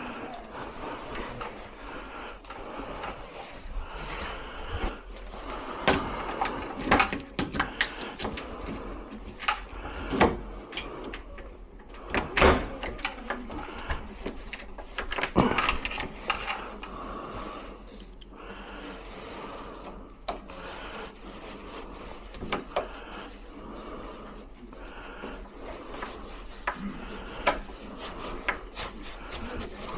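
Irregular clicks and knocks of metal lock parts and hand tools being handled while a door lock is worked on, busiest in the first half.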